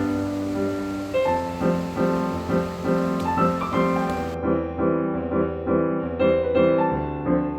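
Background piano music, a gentle melody over steady chords.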